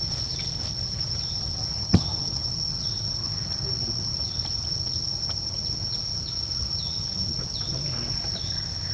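Insects droning: one steady, unbroken high-pitched tone. A single sharp click sounds about two seconds in.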